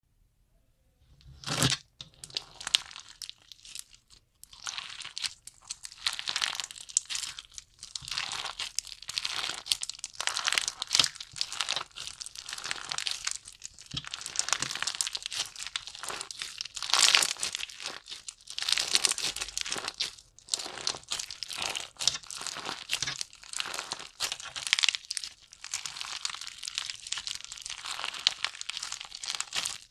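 Slime being squished and played with, giving a dense run of irregular crackles and small pops that starts about a second and a half in.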